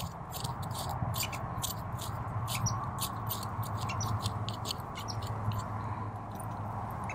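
Knife blade scraping the fluffy seed down off a mature cattail seed head: a quick irregular series of soft, scratchy strokes, a few a second, over a low steady hum.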